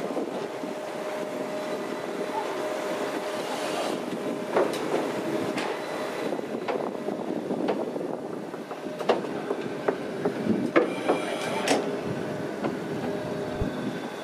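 D51 steam locomotive creeping along the track at low speed: a steady rumbling hum from the moving engine, with sharp clanks and clicks from its wheels and running gear about once a second, bunched together near the end.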